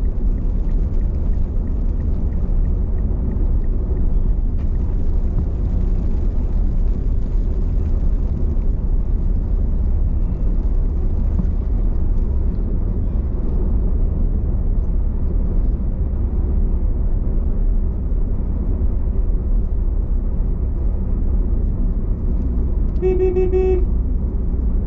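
Steady low rumble of a car driving on the road, with a car horn honking once, briefly, near the end.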